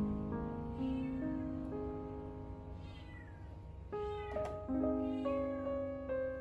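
A domestic cat meowing about three times, short bending calls, over soft piano background music.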